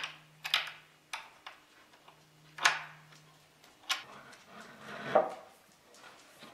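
Scattered metal clicks and short scrapes of nuts, washers and bolts being turned against a table leg's metal corner bracket as the nuts are tightened, about five separate sounds a second or so apart.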